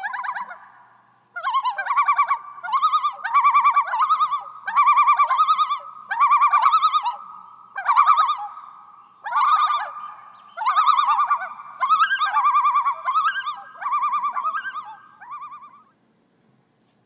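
A black house cat chattering: about a dozen bursts of rapid, stuttering chirps, roughly one a second, over a steady high tone. It is the chatter a cat makes while watching prey through a window. The chatter stops about a second before the end.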